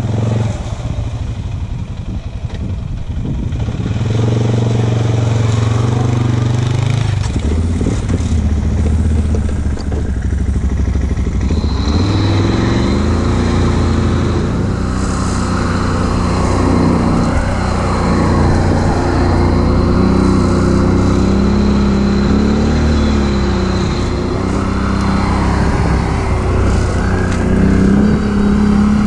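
ATV engines running along a trail, their revs rising and falling as they ride. A thin, steady high whine comes in about a third of the way through.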